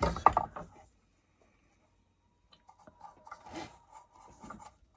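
Faint scratchy strokes of a paintbrush working paint onto wood, in short scattered bursts after a brief pause near the start.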